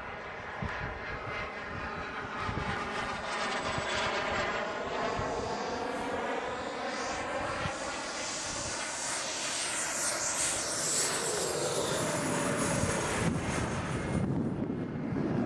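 JetCat turbine engines of a radio-controlled F-14 Tomcat model jet in flight. A high whine and rush grow louder as the jet comes closer, peaking about ten seconds in, with a sweeping whooshing quality as it passes.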